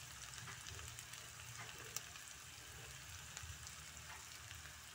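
Fish pieces and crumbled tempe frying in oil in a wok: a soft, steady sizzle with scattered small crackles and one sharper pop about two seconds in.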